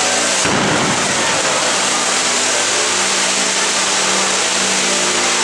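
Fountain fireworks on a cart spraying sparks: a loud, steady hissing rush, with a brief low thump about half a second in.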